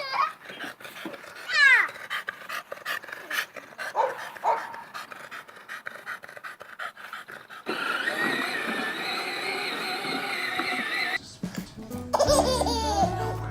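A dog making short high whining cries, one sliding steeply down in pitch about two seconds in, among scattered clicks and knocks. From about halfway on, music takes over.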